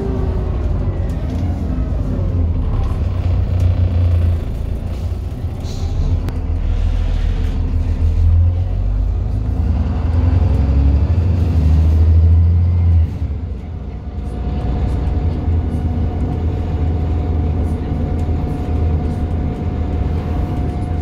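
Alexander Dennis Enviro 400 double-decker bus engine running under load, with pitch lines gliding up and down near the start. It pulls loudest until about 13 seconds in, drops off suddenly, then settles to a steady hum with a level whine.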